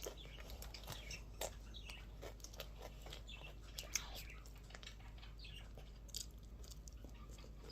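Faint chewing and crunching of a chocolate ice cream cone with a wafer shell: small scattered crunches and mouth clicks throughout.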